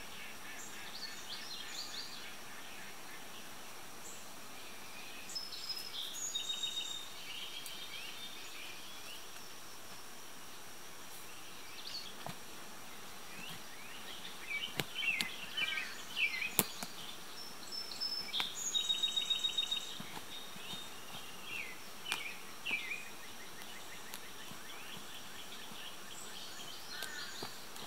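Songbirds chirping and trilling on and off, busiest and loudest in the middle stretch, over a steady high insect drone, with a few faint clicks.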